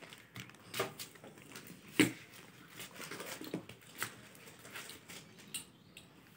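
A wrapped cardboard gift box being handled: scattered light knocks and rustles, with one sharper knock about two seconds in.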